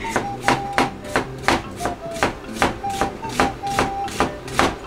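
Chef's knife chopping an onion on a plastic cutting board: steady, even knocks of the blade hitting the board, about three a second.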